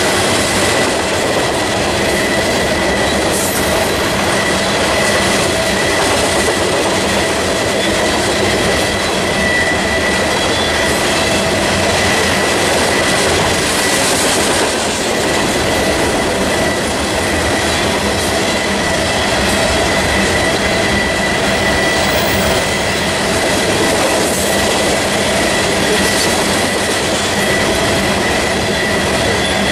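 Freight train of loaded coal cars rolling past at a steady speed: a continuous loud rumble and rattle of steel wheels on rail, with steady high-pitched tones ringing over it.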